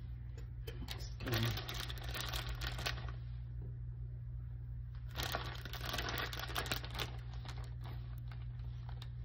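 Kitchen handling noise as chicken is added to a baking dish: two bursts of rustling and scraping with small clicks, about a second in and again about five seconds in, over a steady low hum.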